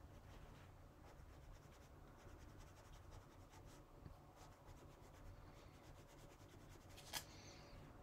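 Near silence: the faint, rapid scratching of a fine paintbrush working over semi-gloss card stock, with one sharp click about seven seconds in.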